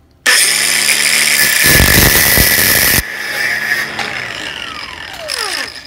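Angle grinder with a cutoff disc starting up and running, cutting through the thin stainless-steel bridge tabs that join small parts for about a second. It is then released and winds down with a falling whine.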